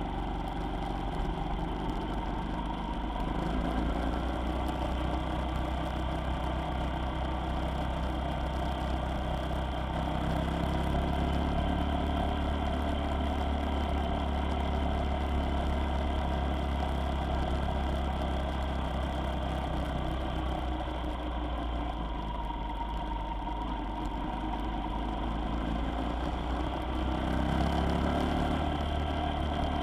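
Engine and road noise of a vehicle on the move, steady throughout, with the engine note rising and falling a few times and climbing near the end.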